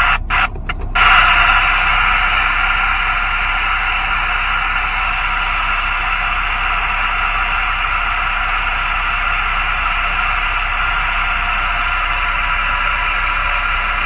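A newly installed Galaxy DX979F CB radio, switched on with no microphone connected, putting out a steady static hiss from its speaker. A few sharp clicks in the first second come as it is plugged in and switched on.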